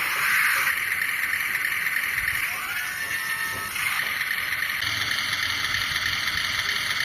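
Remote-control truck's electric motor and gearing whirring as it drives, a steady high whir with the motor's pitch briefly rising and falling about two and a half seconds in.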